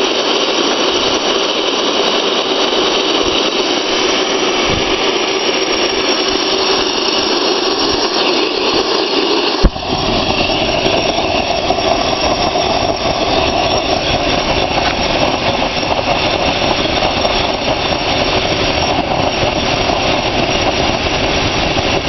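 Homemade metal-melting furnace running with a steady rushing noise from its burner and flame. A sharp click comes about ten seconds in, after which the noise runs deeper and fuller.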